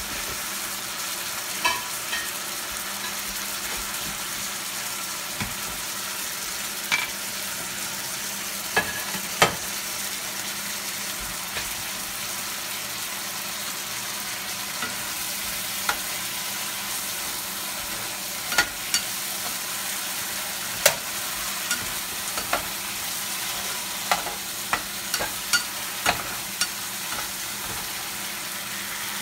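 Shrimp in coconut sauce sizzling steadily in a nonstick skillet on the stove, with scattered sharp clicks and taps that come more often near the end as a spatula works in the pan.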